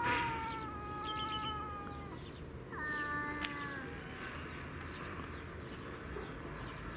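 Cats yowling at each other in a face-to-face territorial standoff: a long, drawn-out wail lasting about two seconds that sinks slightly in pitch, then a shorter one about three seconds in.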